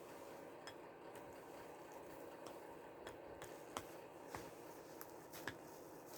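Faint scattered clicks and taps of animals eating a snack from a dish, over a steady low background hum.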